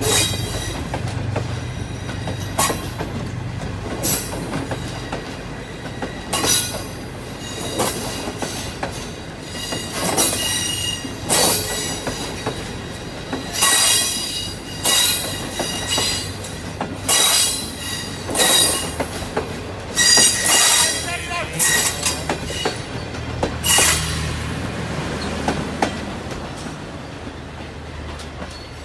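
Pakistan Railways Green Line Express passenger coaches rolling past slowly as the train pulls away from the station. The wheels clack over the rail joints, with repeated short, high-pitched squeals from the wheels every second or so.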